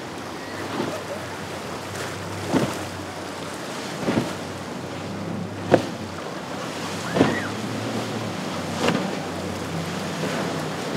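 Boats running through rough inlet waves: a steady wash of wind and water over a low engine hum, with a sharp splashing slap about every second and a half.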